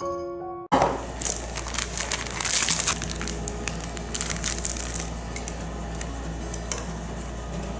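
Instant-noodle packaging handled close to the microphone: plastic crinkling and tearing, starting suddenly about a second in and busiest for the next few seconds, over a steady low hum.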